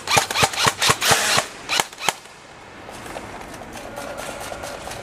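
Airsoft rifle firing a quick, irregular string of about ten sharp shots over two seconds, then stopping.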